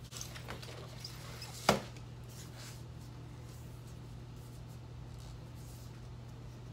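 A clear vinyl LP and its paper record sleeve being handled, with soft rustling and one sharp tap a little under two seconds in.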